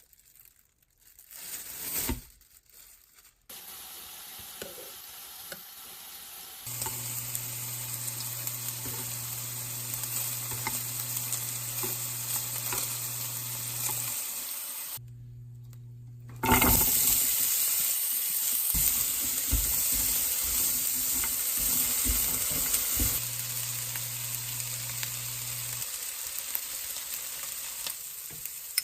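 Food sizzling in a hot pan while being stirred, in several short cut clips. Over a steady low hum, the sizzle gets louder about halfway through.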